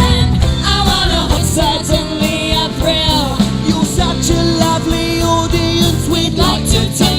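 Live band playing a rock-and-roll style song with a singer, drums, bass and guitar.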